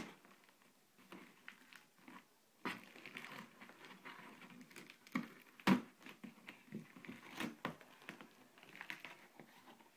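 A cardboard shipping box and its packing being handled and pulled open: faint crinkling and rustling, broken by scattered sharp knocks and scrapes, the loudest about halfway through.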